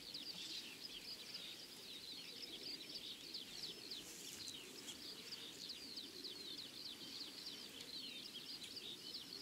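Wild birds chirping and twittering continuously in quick high notes, over a faint low murmur.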